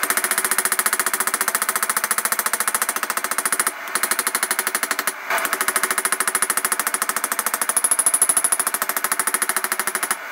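Rapid, even hammer blows on a hot O1 tool steel blade as its bevels are forged, many strikes a second, with two short breaks a little under four and a little over five seconds in.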